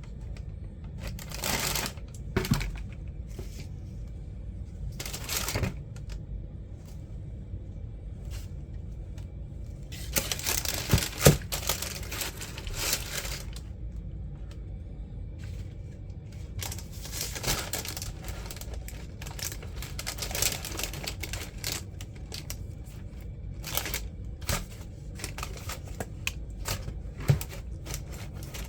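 Tissue paper and a cardboard shoebox being handled, rustling and crinkling in irregular bursts with a few sharp clicks, and a louder knock about eleven seconds in.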